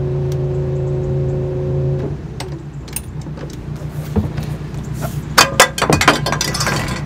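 Canal cruiser's diesel engine running steadily, then easing back with a short falling note about two seconds in and carrying on at a low hum. From about three seconds in, a scatter of sharp clicks and knocks, loudest near the end.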